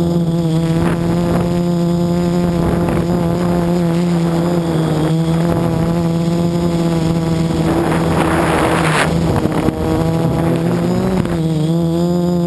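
Quadcopter's electric motors and propellers whining steadily, heard from the craft's own onboard camera, the pitch wavering a little as the throttle changes. A rush of hissing noise builds about eight seconds in and cuts off a second later.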